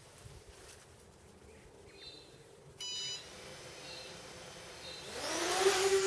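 A short electronic beep about three seconds in. From about five seconds in, the Eachine EX2 (Bugs 3 Mini) quadcopter's brushless motors spin up with a rising whine that then holds steady as the drone lifts off.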